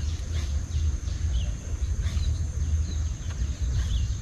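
Waterside birdsong: short, falling chirps repeating about every half second over a steady high-pitched insect drone, with a low rumble underneath.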